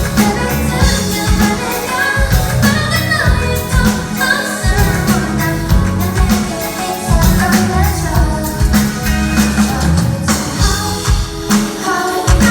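A live pop song: a singer's voice over a band with a steady beat and bass.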